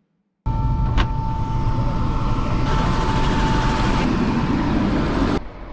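Helicopter running: a loud, steady drone with a high whine, with one sharp click about a second in. It starts abruptly just after the beginning and drops off suddenly near the end.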